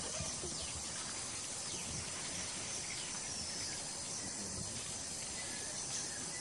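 Dusk forest ambience: a steady, high-pitched insect chorus of crickets, with a few short falling bird calls over it.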